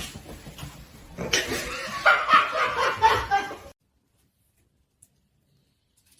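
A person laughing in choppy bursts, stopping abruptly a little past halfway.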